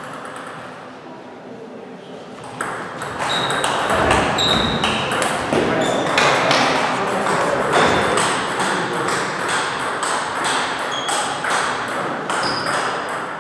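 Table tennis balls clicking off bats and the table in a quick, irregular string, starting about two and a half seconds in. The clicks sit over a steady noisy background.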